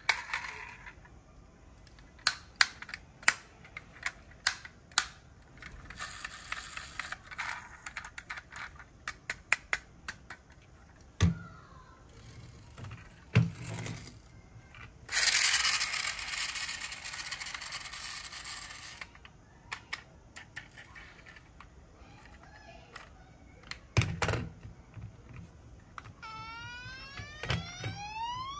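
A die-cast toy police car being handled: many sharp clicks of its small opening doors and parts, a few dull thumps as it is set on the table, and a few seconds of rasping whirr as it is pushed along. Near the end its built-in electronic siren starts, a rising wail.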